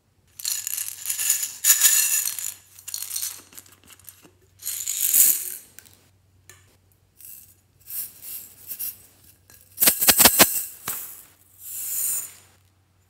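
Small loose bits rattling inside a bottle as it is shaken and tipped out over slime, in several separate bursts. A rapid clatter about ten seconds in is the sharpest.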